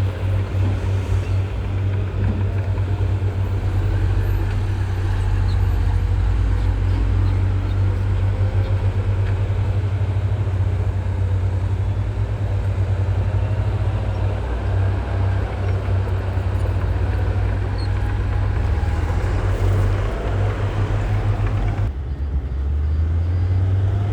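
Diesel engine of a Komatsu bulldozer running steadily under working load, a deep rumble with a fast low pulse.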